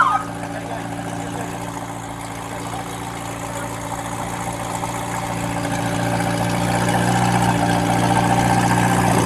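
A motor vehicle's engine idling steadily, getting gradually louder through the second half. A siren cuts off at the very start.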